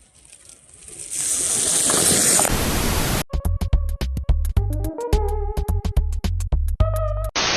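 Electronic intro music: a rising rush of noise swells over about three seconds, then gives way to a bass-heavy pulsing beat with short synth notes.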